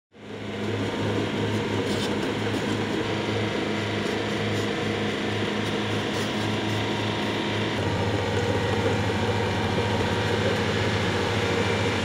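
Vermeer PD10 pile driver running: a loud, steady mechanical drone with a pulsing low throb. The sound shifts to a smoother, even drone about eight seconds in.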